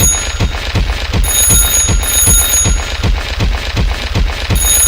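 Rhythmic electronic beeping, a high alarm-like tone switching on and off, over a steady pulsing rumble of low thumps about two or three a second.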